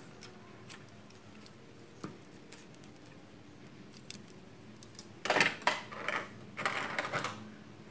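Fabric being handled on a sewing table: a few soft clicks, then two short bursts of cloth rustling, about five and seven seconds in.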